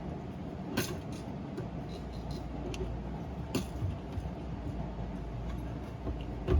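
A few sharp clicks and light knocks from handling a replacement fuel pump assembly and its seal, about three of them spread through, over a steady low hum.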